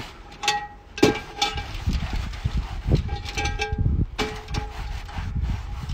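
Cast iron pan being rubbed round with vegetable oil and handled: a rough rubbing rumble with several knocks, some of which leave the pan ringing briefly.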